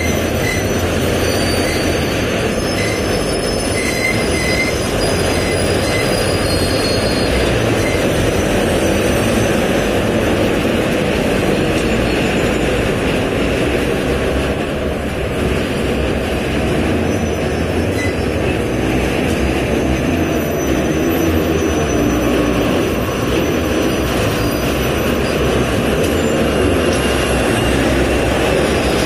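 Slow-moving BRNA flat wagons rolling while long steel rails slide off them and drag over the ballast during rail unloading: a steady, continuous scraping and grinding of steel.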